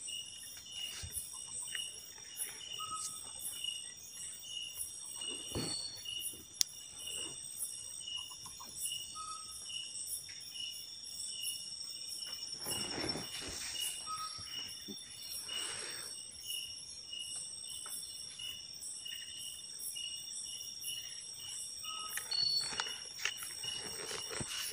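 Night insect chorus: crickets and other insects trilling steadily, with a regular pulsing chirp under high continuous tones. A few brief rustles break in, the longest about thirteen to sixteen seconds in.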